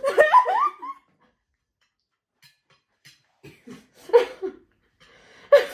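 Two women laughing: a high, gliding laugh in the first second, then a short lull, then stifled, breathy bursts of laughter about halfway through, and another sharp burst near the end.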